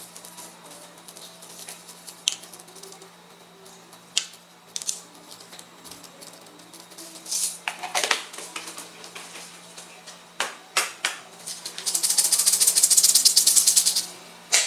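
Metal spatulas tapping and scraping on an ice cream roll cold plate, with a burst of fast strokes about twelve seconds in, over the steady hum of the plate's refrigeration.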